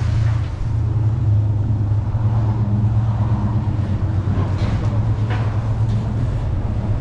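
Steady low hum of a motor vehicle's engine running nearby, over street background noise.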